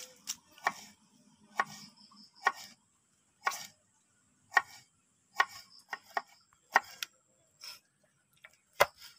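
Knife cutting shallots and garlic on a wooden plank: about a dozen sharp knocks of the blade against the wood at uneven intervals, roughly one a second.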